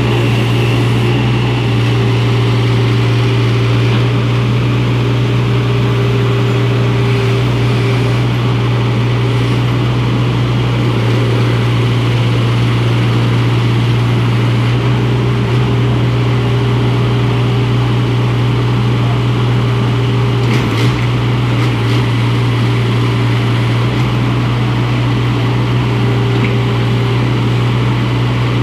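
IHI IS27F mini excavator's diesel engine running steadily, with a higher tone fading in and out over it; a short knock about 21 seconds in.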